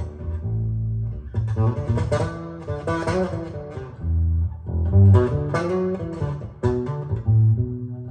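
Bass guitar music, plucked notes and chords over deep, held low notes, played back through Snell Type A/III vintage loudspeakers and picked up by a phone's microphone in the room.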